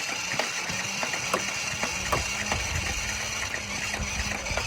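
Motorized Nerf Elite Titan CS-50 blaster firing: a steady motor whir with a stream of irregular clicks as darts are shot, cutting off near the end.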